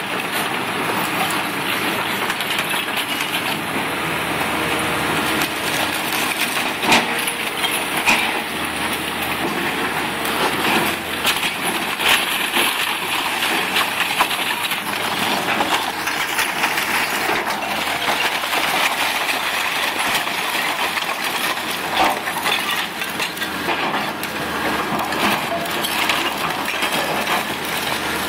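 Two hydraulic excavators, a CAT and a Komatsu, running their diesel engines while their buckets tear into a brick building, with continuous crunching of brick and splintering timber as debris falls. Several sharp cracks and crashes stand out over the steady din.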